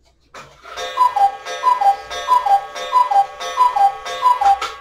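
Cuckoo clock calling "cuck-oo" six times, each call a higher note falling to a lower one from its two bellows-blown whistle pipes, over a steady ringing chord.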